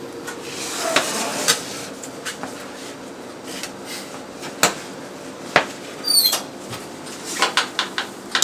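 Metal baking sheet knocking and clattering as it is handled on a glass-top stove and slid onto a wire oven rack: scattered sharp knocks, a short high squeak about six seconds in, then a quick run of rattles near the end.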